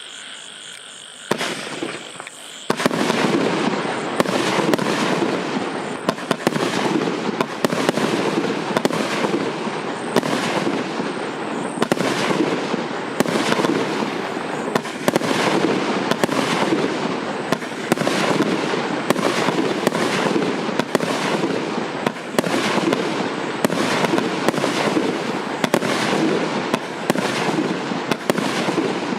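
A 50-shot, 1.2-inch firework cake firing: a rapid, continuous string of launches and bursts. It starts about a second in and is at full fire by about three seconds.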